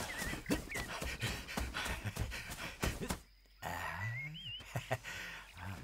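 Hurried footsteps rushing through grass and leaf litter, a run of quick thuds and rustles that stops about three seconds in. Then a man's heavy breathing as he crouches, with high warbling chirps over it.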